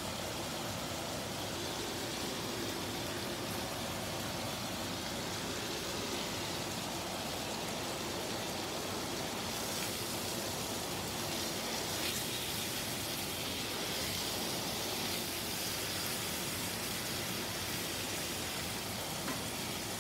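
Teriyaki-marinated striploin steaks sizzling steadily in a frying pan, the sauce bubbling around the meat.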